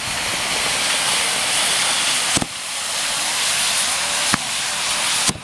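Tezutsu hanabi, a hand-held bamboo-tube firework, spraying sparks with a loud, steady hiss. Two sharp cracks cut through it about two and a half and four and a half seconds in.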